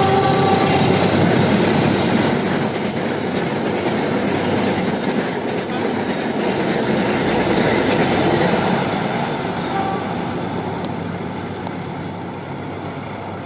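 A train going past: a horn blast ends about a second in, then the steady rumble and clatter of the carriages, growing quieter toward the end.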